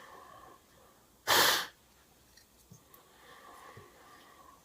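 A person's single short, loud burst of breath noise, a little over a second in, followed by a couple of faint clicks.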